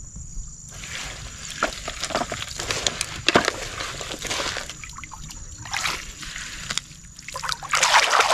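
Wet gravel scraped and scooped by hand out of a plastic toy dump truck's bed, a gritty crunching with small clicks of stones. Near the end, a hand splashing and swishing in shallow stream water, louder than the scraping.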